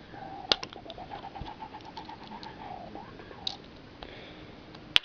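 Small plastic and metal Beyblade parts clicking and being fitted together by hand, with a sharp snap near the end as the top locks together. A faint wavering whine runs underneath.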